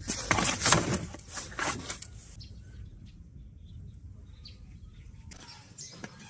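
Dark steamed huangjing (Solomon's seal rhizome) pieces rattling and rustling as they are tipped and shaken about on a cloth-lined wooden drying tray, a run of quick rustles over the first couple of seconds, then much fainter with only a few small ticks.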